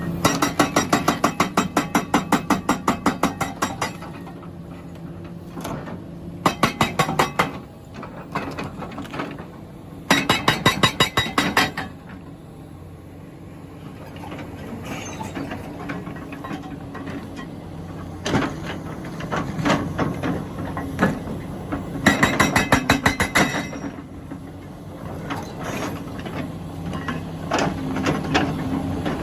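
Rammer hydraulic breaker on a Komatsu PC400LC excavator hammering stone in repeated bursts of rapid blows, about five or six a second. The excavator's engine runs steadily in the pauses between bursts.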